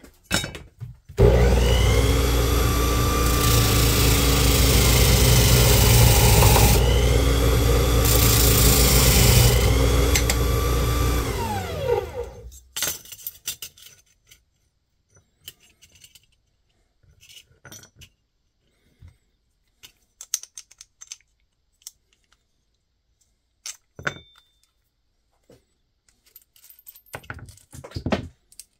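Electric drill running and boring a 1/4 inch hole, its pitch sagging three times as the bit bites, then winding down about twelve seconds in. After that come scattered light clinks of small metal hardware being handled.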